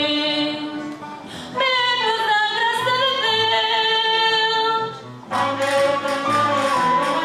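Women's voices singing long held notes of a festive Portuguese carnival song. About five seconds in the band comes in, trumpets and flute with a regular rhythmic beat.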